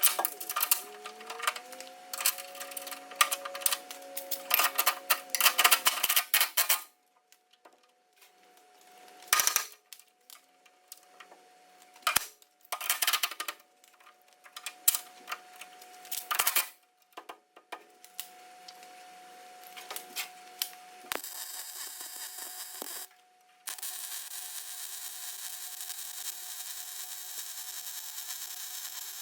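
Electric welding arc crackling on steel in several short bursts, as in stitch welding cracked brackets. From about two-thirds in it gives way to a steadier hiss, with one brief break.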